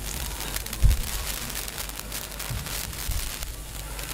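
Crackling background noise over a steady low hum, with a dull thump about a second in and a softer one midway.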